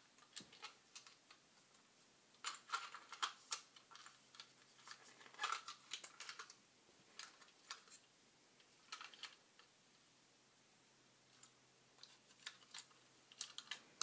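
Hands handling a small plastic item: irregular sharp clicks and light knocks that come in short clusters, with pauses between.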